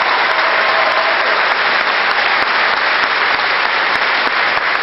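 Large audience applauding steadily, a dense, continuous clapping.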